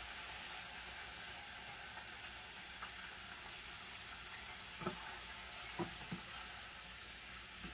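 Breaded chicken pieces deep-frying in vegetable oil: a steady sizzling hiss, with a few faint clicks about five to six seconds in.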